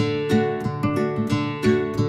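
Background music: acoustic guitar picking a quick, steady run of notes.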